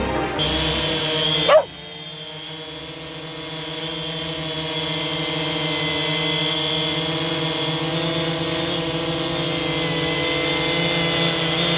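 Multirotor drone's propellers running with a steady high whine, growing louder over the first few seconds as it closes in and then holding steady. There is a short sharp spike with a quick falling sweep about a second and a half in.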